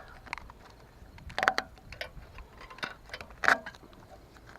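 A few sharp clicks and knocks from small parts being handled while an old boat kill switch is taken off. The two loudest come about a second and a half in and about three and a half seconds in.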